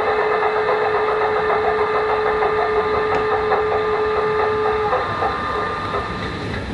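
Class 33 diesel engine sound from a DCC sound decoder in an O gauge Lima model locomotive, going through its shutdown sequence: the engine beat slows and fades out. A steady hum, the triple pump being switched off, cuts off about five seconds in.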